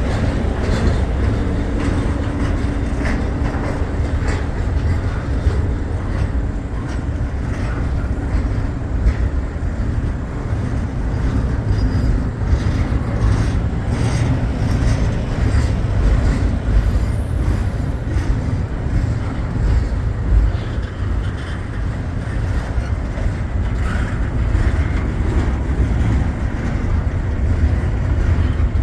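Norfolk Southern freight train rolling past, its railcars making a steady rumble on the track.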